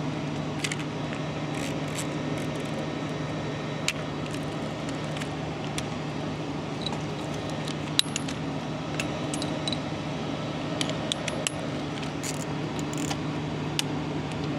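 Scattered small metal clinks and ticks from a torque wrench and socket being handled and fitted to a fuel filter drain plug, the sharpest about four and eight seconds in, over a steady low hum.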